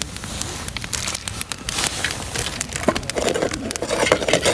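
Wood campfire crackling and popping. About three seconds in, raw sausages go into a hot oiled frying pan over the fire and start to sizzle.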